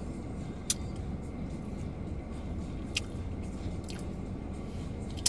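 Chewing crunchy fried chicken tenders, with a few sharp clicks of biting and crunching, over a steady low hum inside a car.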